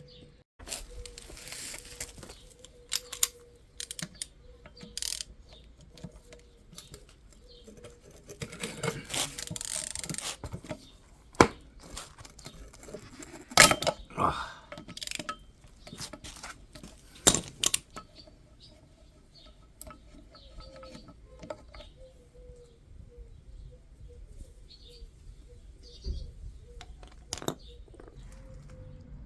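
Metal parts and hand tools clinking and rattling as they are handled: scattered sharp clicks and knocks, with a stretch of scraping about nine seconds in, and sparser, quieter clinks in the second half.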